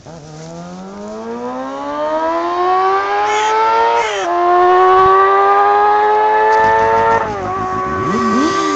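Suzuki GSX-R 600 K6 inline-four with a Micron shorty exhaust, accelerating hard at full throttle. The revs climb steeply toward the high range. About four seconds in there is a quick drop in pitch as it shifts up, and it climbs again. About seven seconds in it dips again and then holds a high, steady note.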